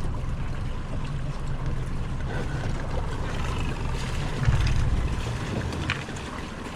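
Boat's outboard motor running steadily under way, a low hum mixed with wind and water noise, with a louder low rush about four and a half seconds in.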